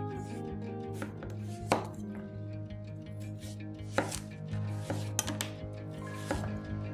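Chef's knife cutting through raw carrot onto a wooden cutting board, a sharp knock at each stroke. The cuts come unevenly spaced, the loudest about a second and a half in and about four seconds in.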